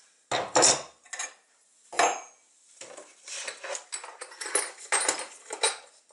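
Hand tools handled on a wooden workbench: steel slip-joint pliers and a short copper pipe set down with a string of knocks and clinks, followed by a clear plastic case of drill bits clattering as it is picked up and set down.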